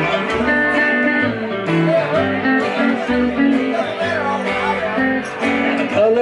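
Live country band playing an instrumental passage without singing: electric and acoustic guitars over plucked upright bass notes.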